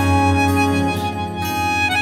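Background music: a melody of held notes that changes pitch about a second in and again near the end, over a steady low sustained tone.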